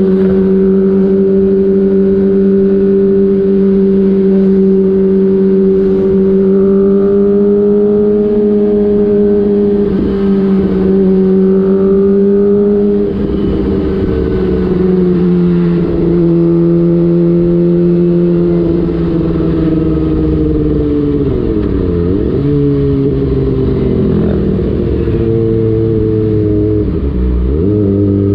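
Kawasaki ZX-25R's inline-four 250 cc engine running through an aftermarket DX Generation Prorace exhaust with the dB killer out, holding steady revs while cruising. The pitch steps down slightly a few times, and near the end the revs drop and climb back sharply twice.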